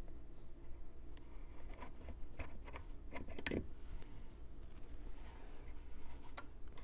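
Faint clicks and light scraping of a drill bit in a hand-held pin vise being worked through an engine's mounting-lug holes to mark the mount, with a cluster of sharper clicks a little after three seconds in, over a low steady hum.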